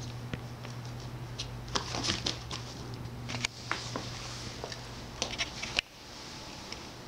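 Scattered soft clicks and taps from a cat moving about right by the microphone, over a steady low hum that cuts off suddenly near the end.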